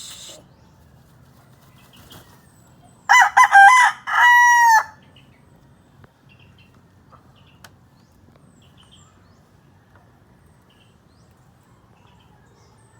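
A rooster crowing once, about three seconds in: a short, broken opening followed by a long held final note that drops at its end.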